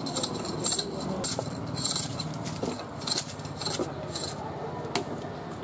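Hand-held sugarcane peeler scraping the rind off a long cane stalk in repeated rasping strokes, about two a second, growing sparser near the end.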